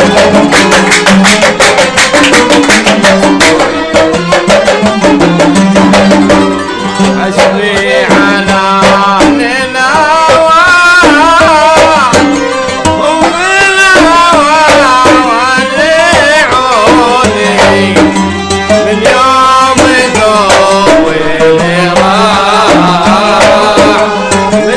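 Kuwaiti folk ensemble playing instrumentally: violins and qanun carry a wavering melody over a steady hand-drum rhythm. The melody comes forward about a third of the way in.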